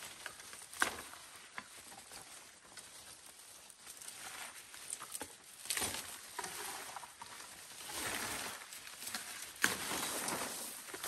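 Foliage rustling and swishing as large dong leaves are handled and picked, with a few sharp snaps of stems breaking, one about a second in and one near the end.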